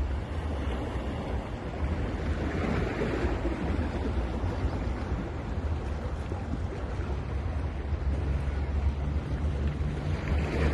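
Sea waves breaking and washing onto a beach, with a surge of surf a couple of seconds in and another building near the end, over a steady low rumble of wind on the microphone.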